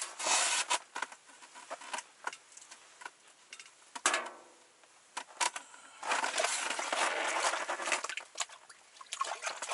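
Handling noises: clothing rustling and scuffing as someone moves and works with their hands, with a sharp knock about four seconds in and a longer spell of rustling from about six seconds.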